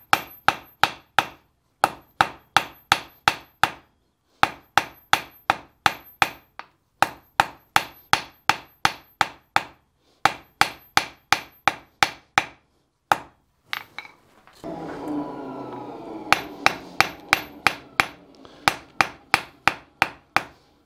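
Hand hammer striking a red-hot iron bar on an anvil as the stock for a key is drawn out, about three blows a second in runs of several blows with short pauses between, each blow with a thin high ring. About two-thirds through, the hammering stops for a couple of seconds and a different, rushing sound fills the gap.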